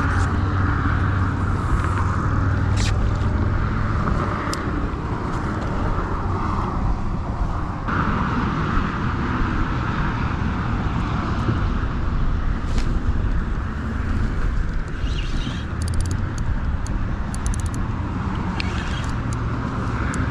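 Steady wind rumble buffeting an open-air action-camera microphone, with a few short clicks scattered through.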